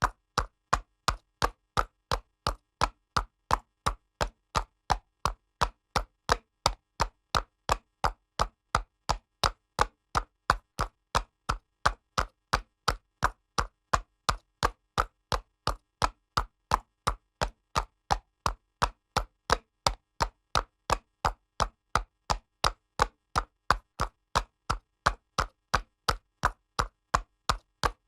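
Horse's hooves trotting on pavement: an even clip-clop of sharp single strikes, about two and a half a second, each clearly apart from the next.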